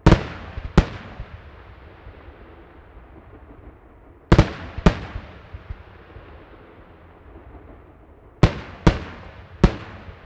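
Aerial firework shells bursting: seven sharp bangs in three groups, two at the start, two about four seconds in and three near the end, each followed by a fading echo.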